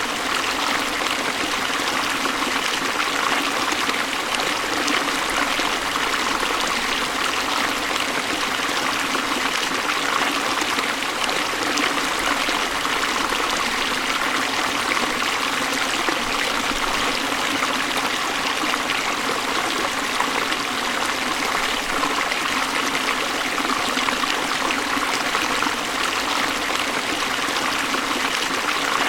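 Waterfall: a steady, unbroken rush of falling water, a dense even hiss with little deep rumble.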